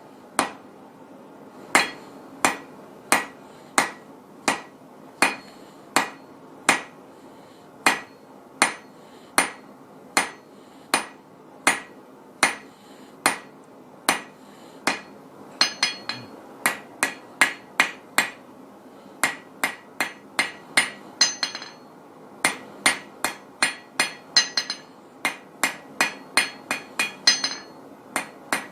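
Blacksmith's hand hammer striking hot steel on an anvil, drawing the stock out thinner. The blows come steadily, about one and a half a second at first, then quicken to two or three a second from about halfway. Some runs of blows ring brighter.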